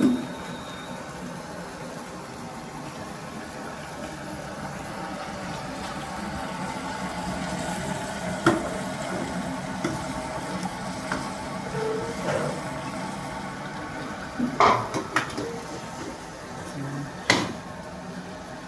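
Chicken cooking in gravy in a kadai: a steady bubbling sizzle, with a few sharp knocks, about three, against the pan.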